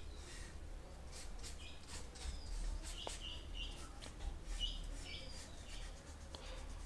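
Faint brush strokes of a paintbrush laying paint on paper, with birds giving short high calls now and then in the background, over a steady low hum.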